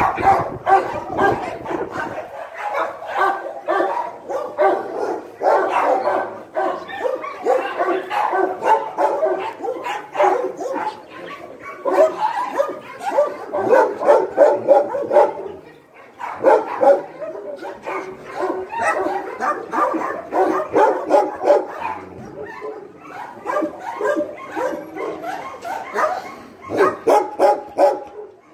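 Dogs barking and yipping rapidly and almost without pause, several barks a second, with a brief lull about sixteen seconds in.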